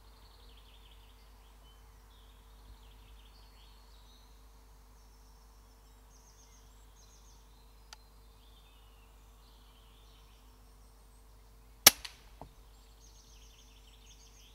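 A single shot from a Daystate Huntsman Revere air rifle about twelve seconds in, a sharp crack followed within half a second by a couple of fainter knocks. Small birds sing in repeated trilling phrases throughout, over a faint steady hum.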